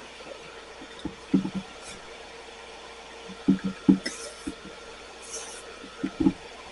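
Steady hum of a bench smoke extractor fan, with several dull knocks of tools and glass pieces handled on the workbench. About four and five seconds in come two brief sizzles of the soldering iron on fluxed copper foil.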